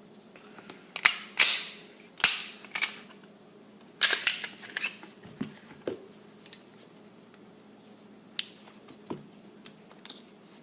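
Sharp metallic clacks and clicks of a Salient Arms International Glock 19 pistol being handled as it is taken apart: its slide and parts are worked by hand. A cluster of loud clacks comes in the first half, then fewer, lighter clicks.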